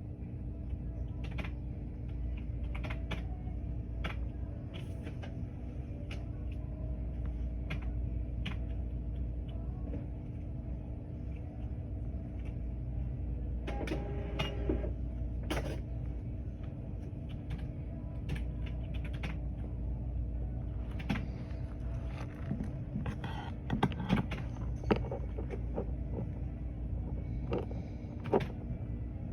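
Scattered computer-keyboard clicks and small taps over a steady low hum. A brief pitched tone sounds about halfway through.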